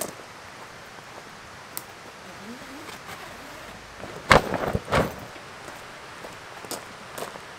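Heavy cotton canvas tent skin being lifted and shaken out, with two loud flaps about four and five seconds in.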